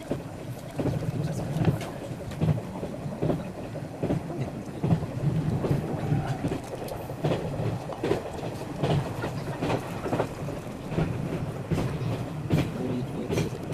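Train running along the rails, heard from inside the passenger car: a steady low rumble with irregular clicks and knocks of the wheels over the track.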